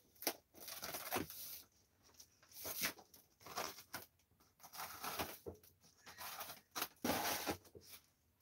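Packing tape on a cardboard shipping box being slit with scissors and pulled open, in about seven short bursts of tearing and scraping noise, the loudest near the end.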